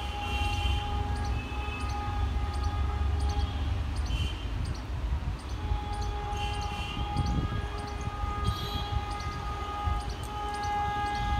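Railway yard ambience: a steady low rumble under a steady mid-pitched hum that grows louder about six seconds in, with scattered short high chirps.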